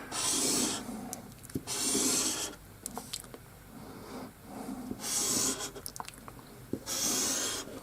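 Four separate scraping strokes on wood, each under a second long, with a few light knocks between them.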